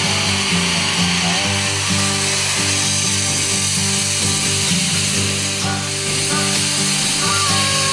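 Steam hissing steadily from the cylinder drain cocks of the standing DB class 41 steam locomotive 41 1150-6. Underneath are low sustained tones that change pitch every second or so.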